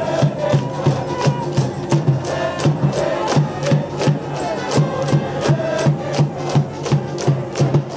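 High school baseball cheering section: a brass band plays a cheer tune over a steady drum beat, about three to four beats a second, with the crowd chanting along.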